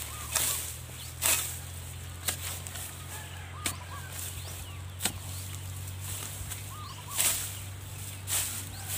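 A metal digging bar jabbed repeatedly into dry soil and rice stubble: about seven crunchy strikes at irregular intervals, digging into a field crab's burrow.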